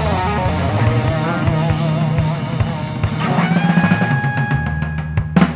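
Live band with an electric guitar solo: wavering, bent notes over bass and drums, then a long held guitar note about three seconds in. The section ends with a fast drum fill.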